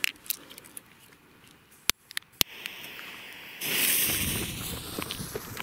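A pocket torch lighter clicks twice, about two seconds in, and its flame hisses. About a second later the fuse of a consumer fireworks battery catches and burns with a loud, sputtering hiss.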